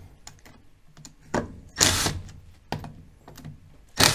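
Cordless impact driver hammering in several short bursts, backing out the bolts that hold an outboard lower-unit gearcase together.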